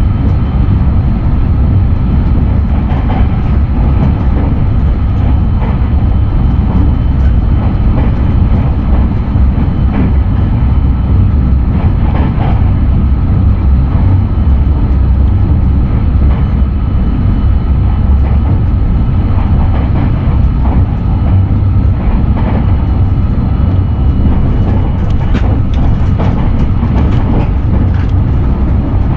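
Running noise inside the cabin of a JR West 683-series limited express electric train: a loud, steady low rumble of wheels on rail, with faint scattered clicks.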